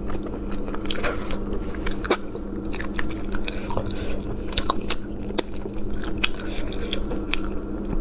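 Close-miked chewing and biting of spicy braised shellfish: many quick wet mouth clicks and smacks as the meat is bitten and worked. A steady low hum runs behind.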